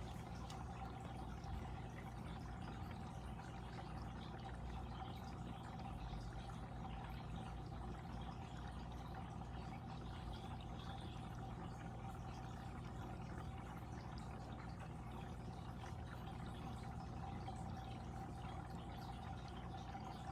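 Water in a fish tank flowing and splashing steadily, with a constant hum underneath.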